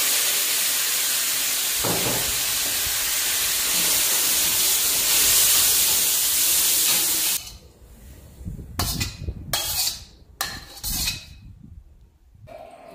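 Beef stir-frying in a wok over a gas burner, a loud steady sizzle as it is stirred with a metal spatula. About seven seconds in the sizzle cuts off suddenly, and a few short scrapes and knocks follow as the spatula serves the stir-fry onto a plate.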